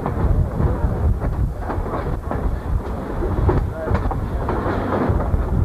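Passenger train car rolling along the track: a steady rumble with irregular clatter and knocks from the wheels and car, and wind buffeting the camcorder microphone.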